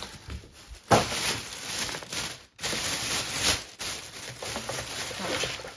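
Thin plastic carrier bags rustling and crinkling as hands rummage through groceries, with a sharp loud rustle about a second in and another surge just before the middle.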